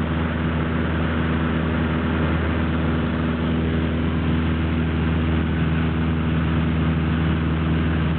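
Light aircraft's propeller engine droning steadily in flight, heard from inside the cockpit, with a rushing noise over the engine's even hum.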